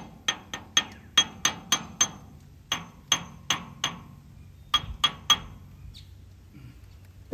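Sharp metal-on-metal taps, about fourteen in three quick groups, each with a bright ring: a steel tool used as a makeshift hammer striking a stuck part under an International 766 tractor to loosen it.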